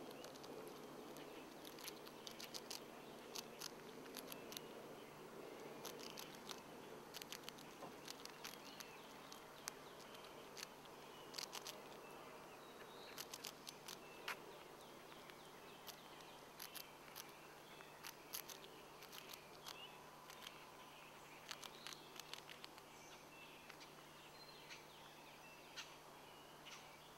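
A pet rat crunching a Cheerio: faint, sharp little clicks in quick irregular clusters. Faint high chirping and a low steady hum sit behind.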